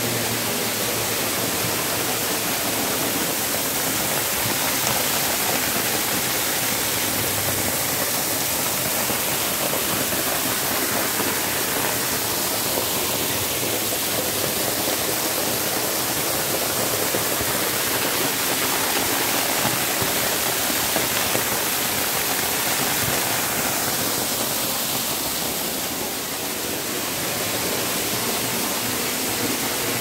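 Waterfall close by, falling onto rock: a steady rush of falling water.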